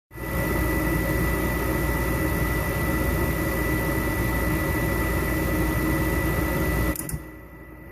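York Diamond 90 gas furnace running: a steady rush of fan and burner noise with a thin, high steady whine over it. The sound drops away sharply about seven seconds in and comes back about a second later.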